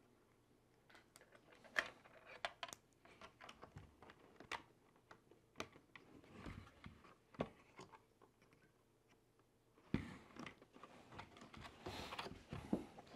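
Faint, scattered clicks and taps of a small screwdriver and a tiny screw against a hard plastic RC truck body shell, a fiddly attempt to start the screw, with a sharper click about ten seconds in and some rustling of handling near the end.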